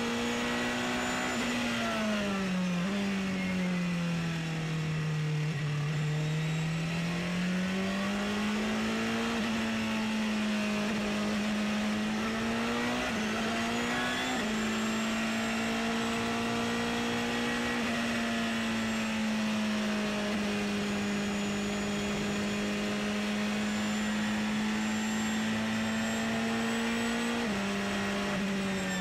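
The Porsche 919 Hybrid's turbocharged 2.0-litre V4 racing engine, heard from onboard the car and running hard. Its note falls and climbs back between about two and nine seconds in, then holds high and nearly steady, with a few small sudden steps in pitch. A faint high whine runs above it.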